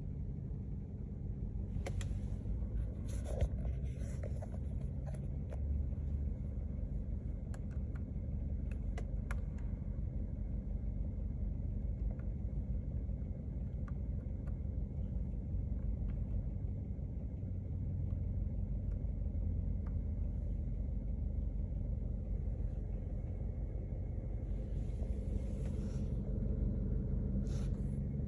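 BMW N43 four-cylinder petrol engine idling steadily, with a light ticking that the owner takes for hydraulic lifter noise and a mechanic called normal.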